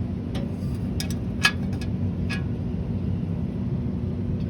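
A steady low rumble with a few short, sharp clicks or knocks in the first half, the loudest about a second and a half in.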